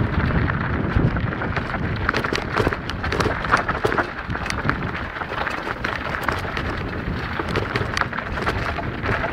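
Mountain bike rolling down a rocky gravel singletrack: tyres crunching over loose stones and the bike rattling, a dense run of small clicks over a steady rumble of wind on the microphone.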